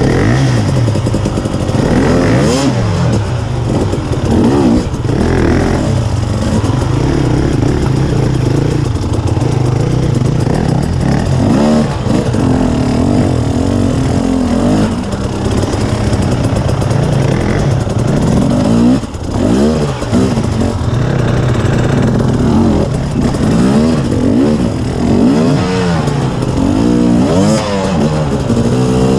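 2019 KTM 250 EXC TPI's single-cylinder two-stroke engine revving up and down as the bike is ridden slowly over a rocky climb. The pitch rises and falls with repeated throttle blips.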